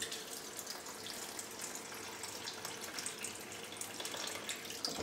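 Kitchen faucet running a thin stream of water into a bowl of dates in the sink, filling the bowl; the sound starts as the tap opens and stops as it is shut off.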